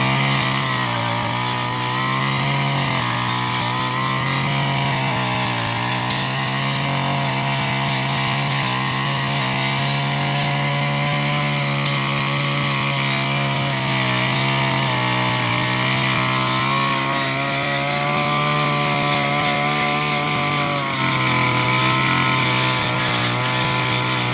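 Petrol brush cutter running at high revs while cutting tall grass, its engine pitch dipping slightly a few times under load.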